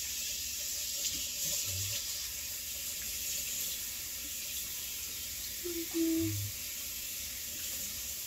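Kitchen faucet running steadily into a plastic colander as raspberries are rinsed under it, with a brief low knock about six seconds in.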